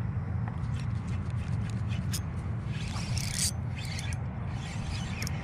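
Wind rumbling steadily on the microphone, with a few sharp clicks and a short hiss about three seconds in.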